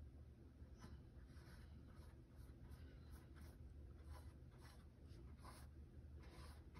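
Faint scratchy swishes of a half-inch flat wash brush dragged across textured canvas, laying on acrylic paint in about a dozen short, irregular strokes, over a low steady hum.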